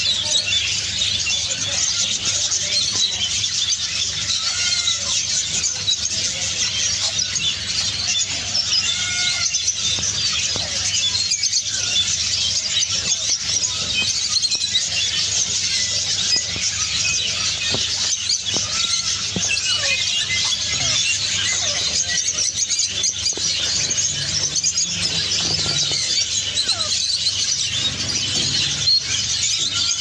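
Many caged birds chirping and twittering at once in a dense, unbroken high chatter, with a few lower calls now and then.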